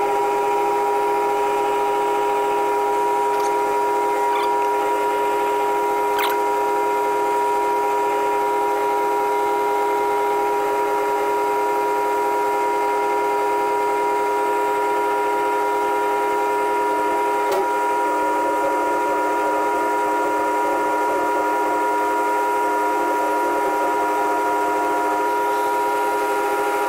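Jet JMD-18 mill-drill spindle running at its full 3000 RPM while a small 7/64-inch end mill cuts a keyway in a steel spacer: a steady machine whine with a few faint ticks.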